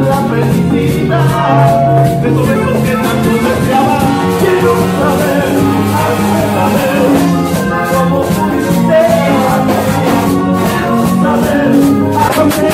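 Live cumbia band playing loudly with a steady beat, a metal güiro scraping the rhythm alongside congas.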